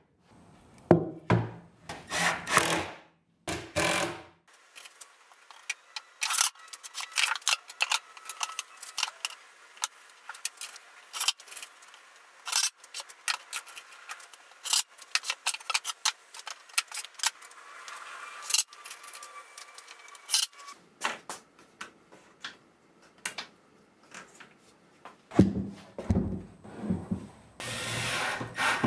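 Drawers being fitted into a wooden cabinet: a busy run of clicks, taps and wood-on-wood rubbing, with heavier knocks near the start and again near the end.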